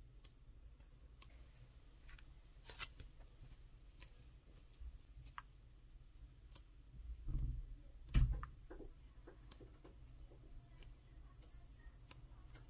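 Faint handling of a glossy paperback photobook as its pages are turned: scattered small paper ticks and clicks, with a louder soft thump and then a sharp tap about seven to eight seconds in.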